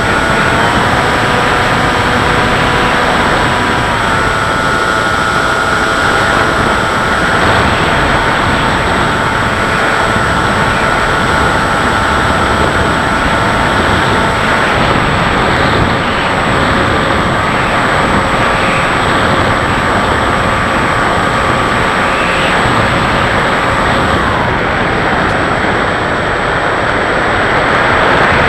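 Electric motor and propeller of a Bixler RC plane running steadily, heard from the onboard camera under loud wind rush. The motor's whine shifts pitch a few times with throttle and drops away near the end, leaving the wind noise.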